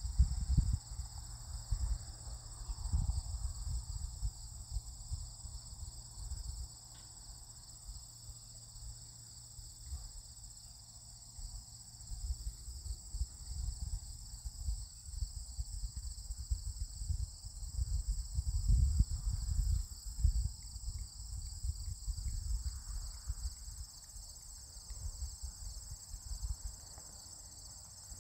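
Field insects chirring steadily in a high, unbroken drone, with irregular low rumbling that comes and goes, loudest right at the start and around nineteen seconds in.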